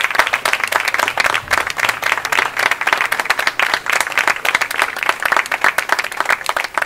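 Audience applauding, many hands clapping quickly and unevenly, dying away near the end.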